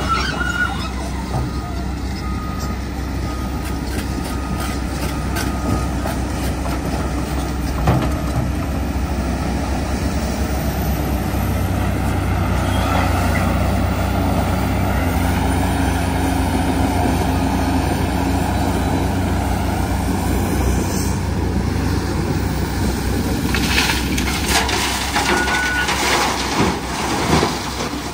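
Cat 349D hydraulic excavator's diesel engine running steadily under load among other heavy diesel quarry machines, its note heavier in the middle. Near the end, rock and dirt clatter into a steel dump truck body as the bucket is emptied.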